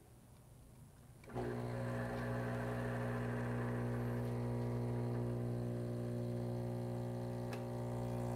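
Espresso machine's pump switching on about a second in and then humming steadily as it pushes water through the coffee puck for a shot.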